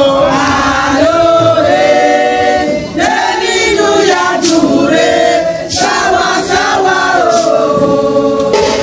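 A group of voices singing together in long held notes, with a few sharp claps or knocks in the second half.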